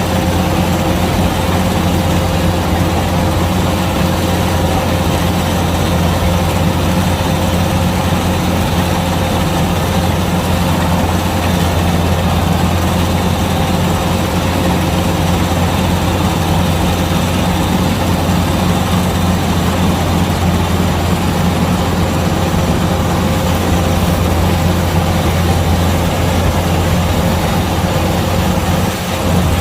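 Kubota DC-105X combine harvester's diesel engine running steadily with a low, even hum, dipping briefly near the end.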